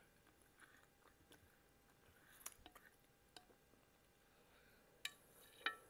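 Faint close-up chewing of soft cooked salmon, with a few sharp little mouth clicks and smacks scattered through it, the loudest a little after five seconds in.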